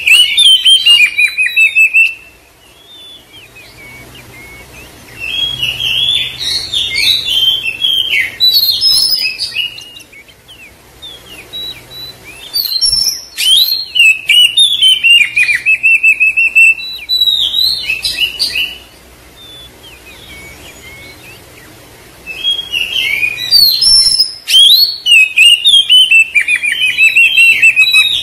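Oriental magpie-robin (kacer) singing loud bouts of rapid, varied whistles and chirps, each lasting a few seconds, with quieter pauses of about three seconds between them. This is a kacer trigger song (pancingan), meant to provoke other magpie-robins into singing.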